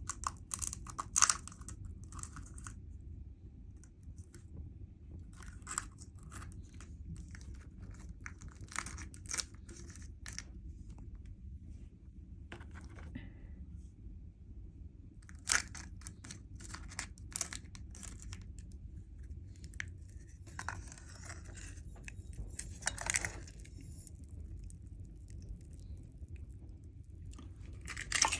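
Crisp pani puri shells being bitten and chewed: irregular crackling crunches at uneven intervals, over a steady low hum.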